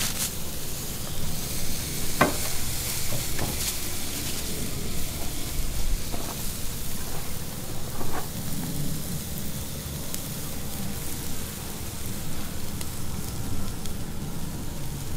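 Thick ribeye steaks sizzling as they sear on a grill over very hot coals, a steady hiss with a few sharp crackles.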